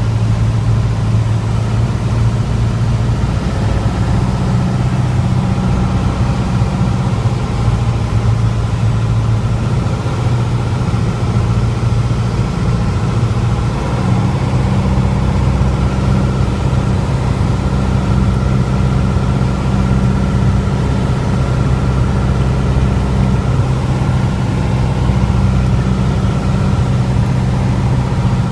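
Piper PA-28's single piston engine and propeller droning steadily, heard inside the cockpit on final approach with power reduced for landing. The engine note shifts slightly about halfway through.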